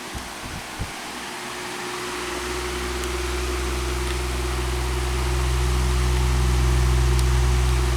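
Galaxy 16-inch oscillating table fan running on medium speed: a steady motor hum under the wind noise of its blades. A few light clicks come in the first second, and a low rumble builds from about two seconds in.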